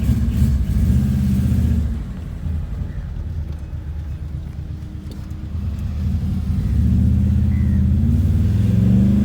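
Turbocharged Proton Wira 4G15 four-cylinder engine running under way, with the rumble of its unequal-length extractors. It eases off about two seconds in, then picks up again from about six seconds in, rising in pitch.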